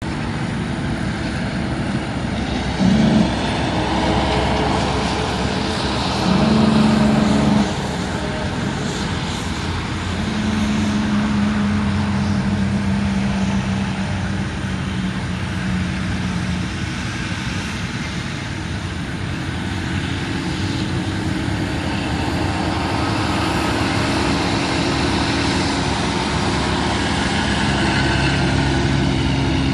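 Steady rumble of vehicle engines and distant aircraft as a small private jet approaches and lands far across the airfield. Two loud steady-toned blasts cut in, a short one about three seconds in and a longer one a few seconds later, and a steady engine tone holds for several seconds in the middle.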